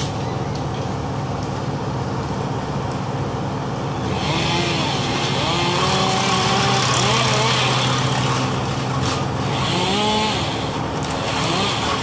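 A chainsaw cutting into the tree from about four seconds in, its pitch rising and falling as it revs, and dropping away about a second before the end. Under it, a heavy machine engine runs steadily throughout.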